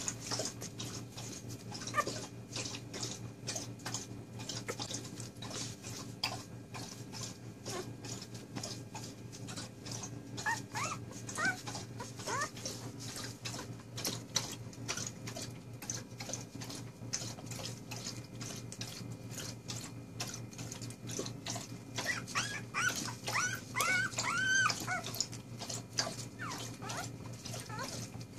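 Four-day-old puppies squeaking and whining in short, high, wavering cries, in two bouts: a few around ten seconds in and a longer run of cries a little past twenty seconds.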